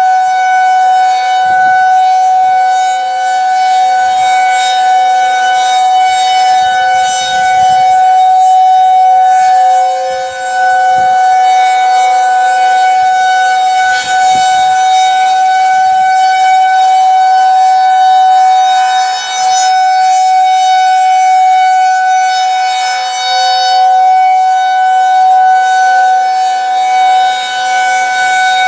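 Federal Signal 2001-SRNB outdoor warning siren sounding its steady alert tone. The pitch holds level, while the loudness swells and dips every few seconds as the rotating head sweeps past.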